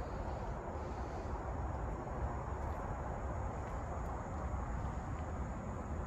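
Steady outdoor background noise: an even low rumble with a faint high hiss above it and no distinct events.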